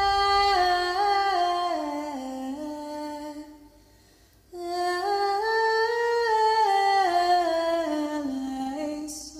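Closing theme music: a slow, wordless melody of held notes that step up and down, in two long phrases with a pause of about a second near the middle.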